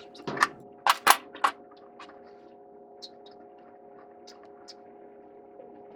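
Hand tools clanking against metal plumbing fittings: four or five sharp knocks within the first second and a half, then a few faint ticks, over a steady hum.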